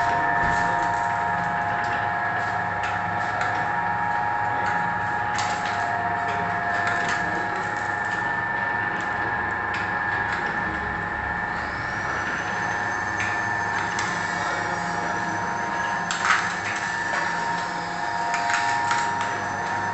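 Sachet packing machine with conveyor and center-seal unit running: a steady mechanical hum with several steady tones and irregular clicks. A thin high whine comes in about halfway, and there is one louder knock near the end.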